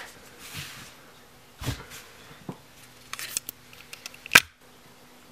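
Plastic clicks and clacks of a Nerf foam-dart blaster being handled, loaded and primed: a few separate snaps, a quick cluster of small clicks, then one sharp loud clack near the end.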